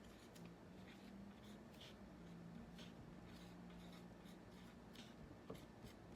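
Faint scratching of a writing tool on a surface, in short irregular strokes as a word is written out syllable by syllable, over a low steady hum.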